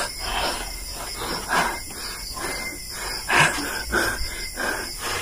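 Fast, heavy wheezing breaths, about three a second, as a woman pants and heaves while straining to vomit.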